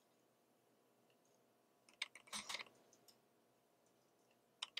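Faint clicks from a Nikon D810 with a Nikkor 105mm f/1.4 lens as it is made to autofocus, a short cluster about two seconds in and another near the end, with no focus-confirmation beep.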